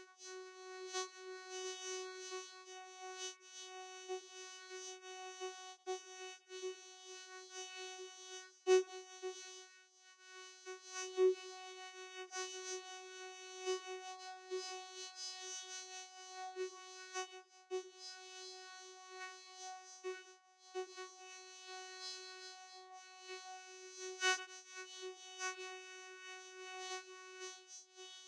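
Vocoder sound effect: one buzzy electronic tone held at a single steady pitch with a dense stack of overtones, its loudness fluttering unevenly.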